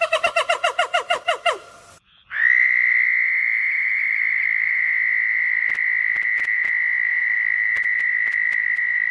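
A quick run of about a dozen short calls, each dropping in pitch, then, after a cut, one long, steady high trill lasting about seven seconds.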